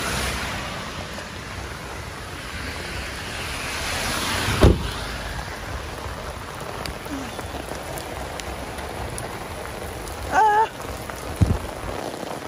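Steady rain falling on wet pavement, with one loud heavy thump about a third of the way in and a brief voice sound with a smaller knock near the end.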